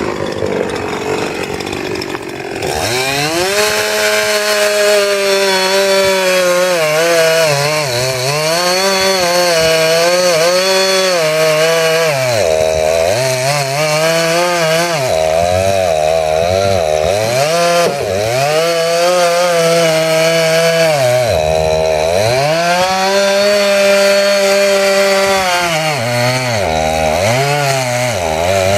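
Chainsaw running at low speed, then revving up about two and a half seconds in and cutting into a dead tree, its engine note dipping under load and recovering over and over as the chain bites into the wood.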